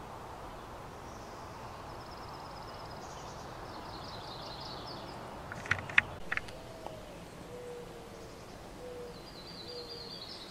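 Wild birds singing in a garden: thin, high trilled songs in the first half and again near the end, and a short low call repeated about four times in the second half. A few sharp clicks come about six seconds in.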